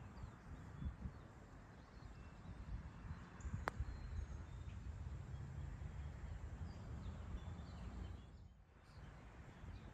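A single sharp click of a putter striking a golf ball, about four seconds in. It sounds over a low, uneven rumble of wind on the microphone and a few faint bird chirps.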